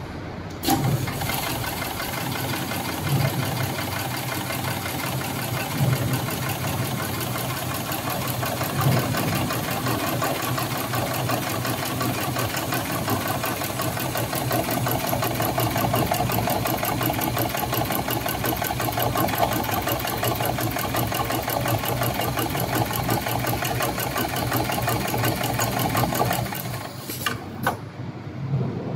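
HighTex 72008R extra-heavy-duty automatic sewing machine stitching a dense bar-tack through a doubled climbing rope: a steady, fast needle rhythm that starts with a click about half a second in and stops with a couple of clicks near the end.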